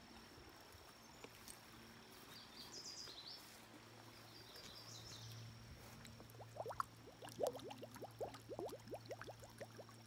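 Quiet outdoor ambience with faint chirps: two small clusters early on, then a quick run of short chirps in the second half, over a steady faint hum.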